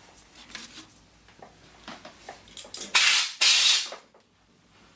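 A few light clicks and taps, then two short hissing bursts of spray, each about half a second, close together.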